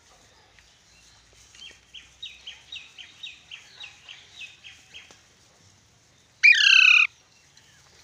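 Alexandrine parakeet giving one loud, harsh screech of about half a second, near the end. Before it comes a run of about a dozen soft, short chirps, about four a second.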